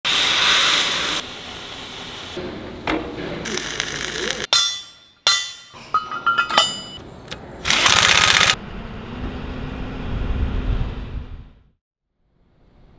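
A quick run of metalworking factory sounds. It opens with a loud hiss from a CNC cutting torch on steel plate. Sharp knocks and ringing metallic clinks follow, then another loud hissing burst, and a low rumble that fades out near the end.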